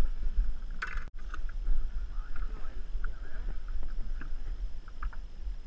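Low wind rumble on the microphone, with scattered light clicks and knocks from handling longline hooks and line in a small boat. The sound cuts out briefly about a second in.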